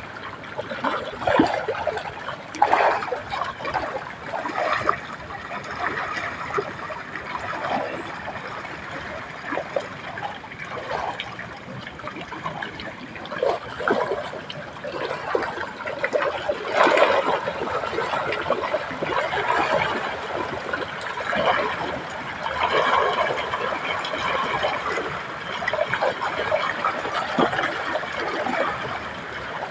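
Water trickling and splashing, with irregular louder splashes, the strongest about two thirds of the way through.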